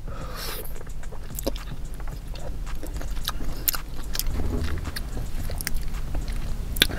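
Close-miked eating sounds: biting into and chewing a soup dumpling, with irregular wet mouth clicks and smacks.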